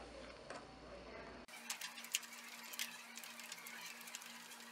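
Faint, scattered small clicks and ticks of a T6 Torx screwdriver turning small screws out of a metal device housing, over a faint steady hum.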